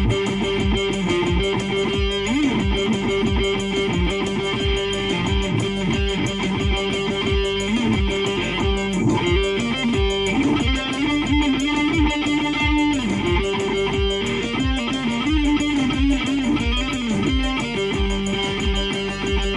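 Music: electric guitar playing held notes that bend and slide in pitch, over a steady low beat of about two strokes a second.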